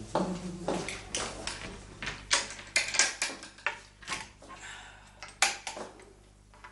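Wooden wardrobe being opened and things shifted about on its shelves: a quick string of small clicks and knocks, with a few sharper knocks around the middle, dying down near the end.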